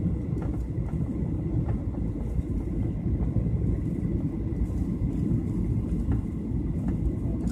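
Steady low rumble of engine and airflow noise inside a jet airliner's cabin, heard from a window seat over the wing, with a faint steady high whine on top.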